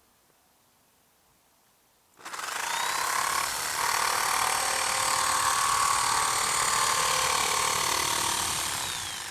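Electric jigsaw starting up about two seconds in and running steadily and loudly, beginning to wind down near the end.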